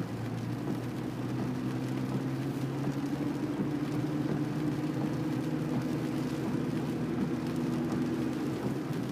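Steady drone of a car's engine, with road noise from the tyres on the wet road, heard inside the cabin while driving.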